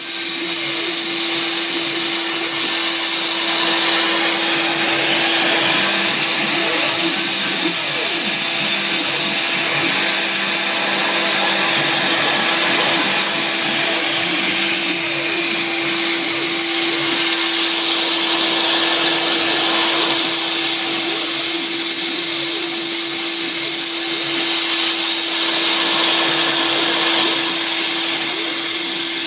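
Sieg SX2 mini mill running under CNC control, its spindle turning steadily with a constant whine while a 6 mm cutter mills a hardwood block, over a broad hiss of cutting. Faint tones rise and fall as the axes move.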